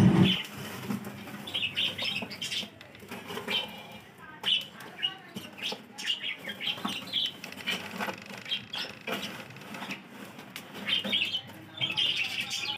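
Small birds chirping, over scattered clinks and knocks as lumps of burning charcoal are shifted and bricks are set on the metal lid of a large biryani pot heaped with coals for dum cooking.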